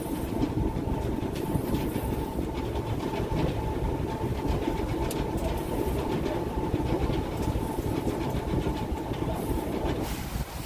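Boat engine running steadily, a dense rumble with a thin steady whine over it, free of wind noise. It cuts in and out sharply.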